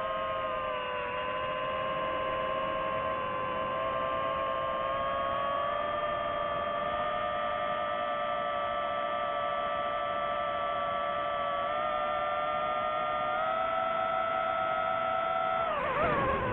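DJI FPV drone's motors and propellers whining steadily in cruise, the pitch stepping slightly up and down with throttle. Near the end the whine wavers and falls in pitch as the drone tips over into a dive.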